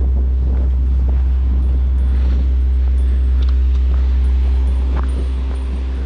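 Wind buffeting the microphone: a loud, steady low rumble, with faint sounds of people on the path in the background.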